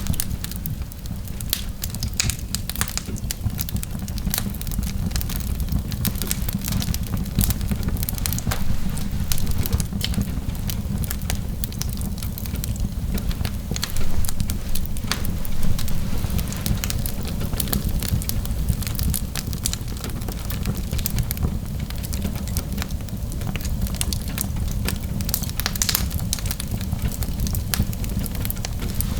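Fire burning in a fireplace, crackling and popping irregularly over a steady low rumble.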